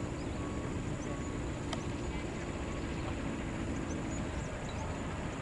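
Outdoor ambience: a steady low rumble with a few faint, short high chirps of small birds, and one light click a little under two seconds in.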